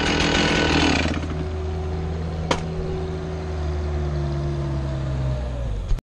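Gas chainsaw finishing a cut through a maple log, then dropping off the throttle about a second in and idling, its pitch slowly sinking. One sharp click sounds midway.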